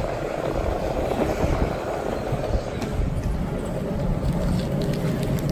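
Skateboard wheels rolling on a concrete floor, a steady low rumble.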